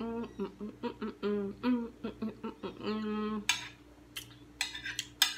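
A woman humming "mmm" several times in enjoyment as she tastes a mouthful of food. A little over three seconds in, it gives way to a few sharp clinks of a metal spoon against a plate as she scoops another spoonful, the loudest near the end.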